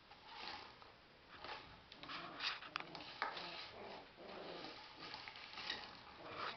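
West Highland white terrier puppies, about six weeks old, making small puppy noises and scuffling as they play. The sound comes in short irregular bursts with a few sharp clicks.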